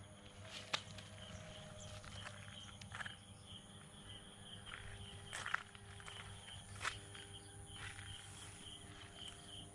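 Faint outdoor ambience: a steady high-pitched insect trill, with a few soft scattered knocks and rustles.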